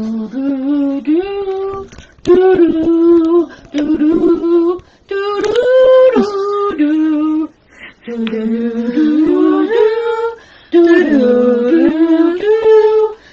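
Women singing a slow tune in long held notes that step up and down, in phrases of a second or two with short breaks between them.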